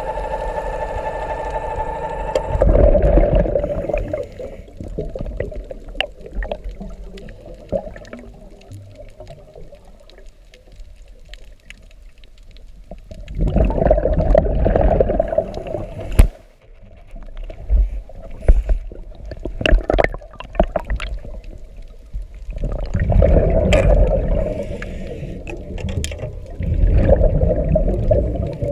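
Recorded underwater: a dive scooter's electric motor whines at a steady pitch and cuts off about two seconds in. Then scuba exhalation bubbles gurgle in bursts of a couple of seconds, four times, with light clicks between.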